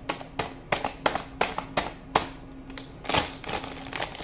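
Irregular sharp crackles and crunches of popcorn snacking: the popcorn being chewed and the plastic snack bag crinkling. A longer rustle about three seconds in, over a faint steady hum.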